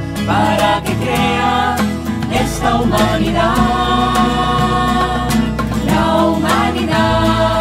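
Christian song: several voices singing together in held, sliding notes over a steady instrumental accompaniment.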